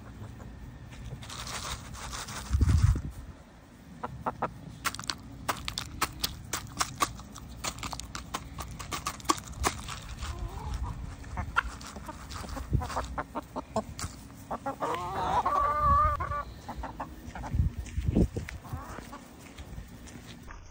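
Chickens foraging close by, with a long run of quick sharp clicks and taps from pecking and scratching at dry grass. A chicken gives one wavering call about fifteen seconds in. A low thump near the start is the loudest sound.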